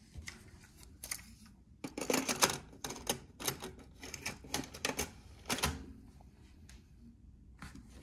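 Plastic clicks and clatter from the Panasonic SA-PM07 micro stereo's cassette deck as a cassette is loaded and the tape door is pushed shut. The clicks come as a quick irregular run in the middle, with a few single clicks near the start and end.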